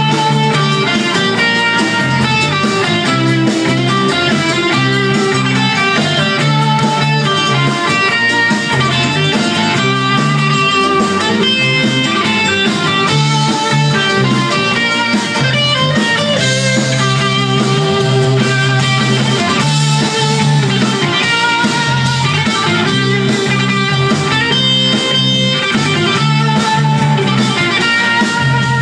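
Live rock band playing an instrumental passage: quick electric guitar lead lines over a steady bass guitar line, with no singing.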